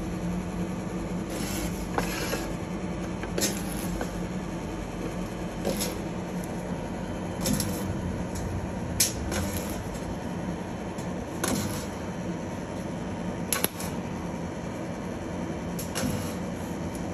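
Mobile spot welder firing a series of spot welds joining galvanized wire mesh to a galvanized pipe: about ten sharp snaps at uneven intervals of roughly one to two seconds, over a steady machine hum.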